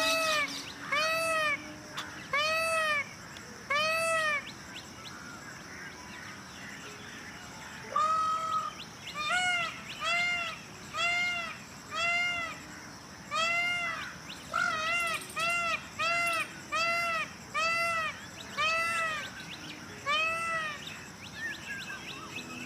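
Peacock calling: a run of short, loud calls, each rising and falling in pitch, about one a second. The calls pause for a few seconds and then start again in a longer run.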